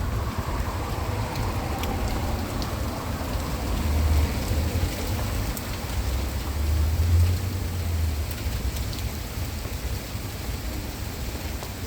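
Heavy rain falling steadily, with scattered sharp drips, and a low rumble that swells twice, about four seconds in and again around seven seconds.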